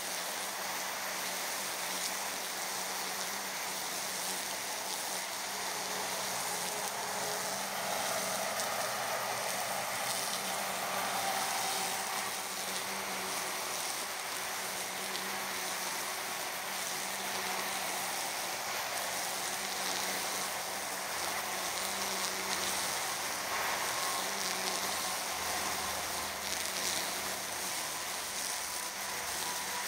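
EGO Power+ cordless string trimmer running steadily some way off, its line cutting through tall grass: a continuous whirring hiss with a faint motor hum underneath.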